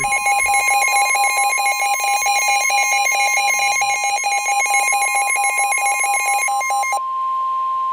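NOAA Weather Radio warning alarm tone, a steady high tone, with a weather radio receiver's own alarm beeping rapidly over it until about seven seconds in. The beeping then stops while the steady tone carries on. Together they announce a severe thunderstorm warning.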